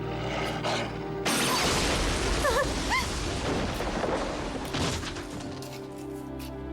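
Dramatic background music. About a second in, a loud rushing crash-like sound effect lasting a few seconds cuts across it, with a few short bending cries in its middle.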